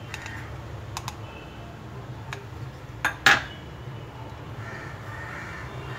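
A spoon clinking and knocking against a stainless steel saucepan while milk is stirred, five or so sharp clinks with the loudest a little over three seconds in, over a steady low hum.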